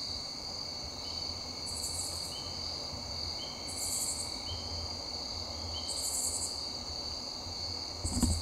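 Insects singing, such as crickets: a steady high-pitched trill with a buzzy pulse about every two seconds and short chirps about once a second, over low wind-like rumble. There is a brief knock near the end.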